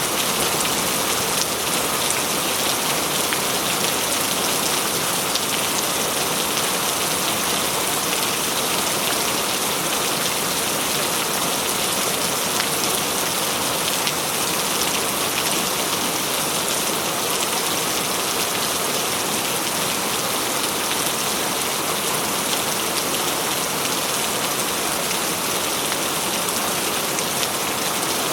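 Steady, heavy rain falling and splashing: an even hiss of drops with no let-up and no thunder.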